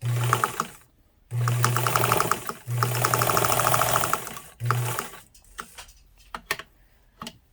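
Kenmore 158.340 sewing machine stitching at its longest stitch length under the foot pedal, in four short runs over the first five seconds. Each run is a steady motor hum with a quick, even ticking of the needle stroke. A few scattered light clicks follow near the end.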